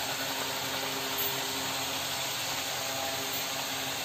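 Hot oil sizzling steadily around a peanut nippattu (rice-flour and peanut cracker) deep-frying in an iron kadai, with a faint steady hum underneath.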